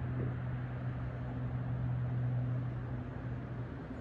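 A steady low mechanical hum over an even low rumble.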